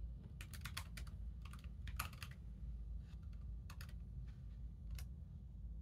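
Typing on a ThinkPad X60 laptop keyboard: a quick run of soft key clicks for about two seconds, then a few single keypresses, the last about five seconds in.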